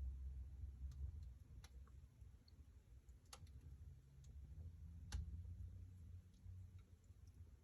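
Wood fire burning in a fireplace, crackling softly over a low rumble, with a few sharp pops spaced a second or more apart.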